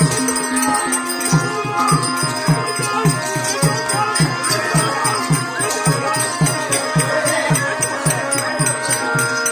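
Traditional-style music with a fast, steady drum beat whose low strokes each drop in pitch, over held tones and a high jingling of bells or rattles.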